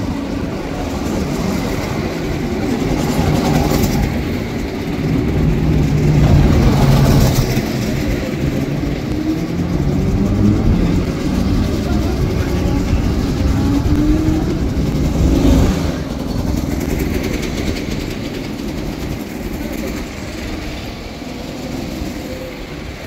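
Go-karts running on a track, their motors rising and falling in pitch as they accelerate and pass close by, loudest about six to eight seconds in and again around fifteen seconds.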